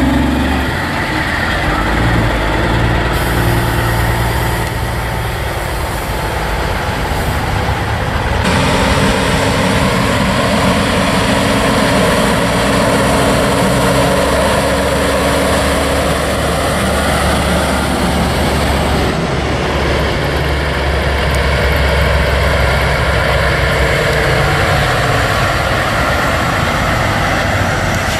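Diesel engines of semi trucks running as the tractor-trailers pass one after another, a steady loud drone. The sound changes abruptly about eight seconds in.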